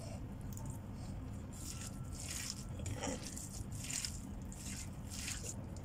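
Bare hands squishing and kneading a wet filling of ground meat, diced carrots, mushrooms, sauces and cornstarch in a stainless steel bowl. The soft squelching strokes come at irregular intervals.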